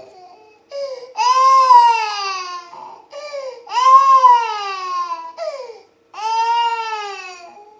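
Toddler crying in three long wails, each rising and then falling in pitch, with short sobbing breaths between them.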